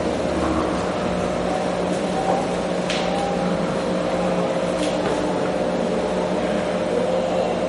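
A steady electrical or mechanical hum with a constant low drone, and two faint clicks about three and five seconds in.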